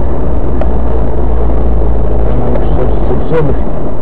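Road and engine noise inside a moving car, picked up by a dashcam microphone: a loud, steady low rumble.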